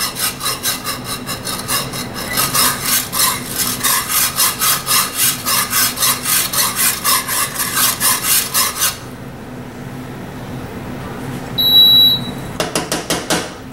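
Wire whisk scraping round a cast-iron skillet of simmering milk gravy, a quick even rhythm of about four strokes a second, beating the gravy as it thickens. The whisking stops about nine seconds in. Near the end comes a brief ringing clink, then a few more stirring strokes.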